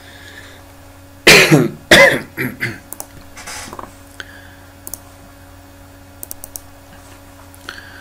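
A man coughing to clear his throat: two loud coughs about a second and a half in, roughly half a second apart, followed by a few faint short clicks.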